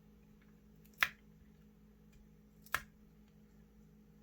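Two sharp clicks about a second and a half apart: a plastic spudger snapping against an iPhone XR's frame as it works the screen adhesive loose.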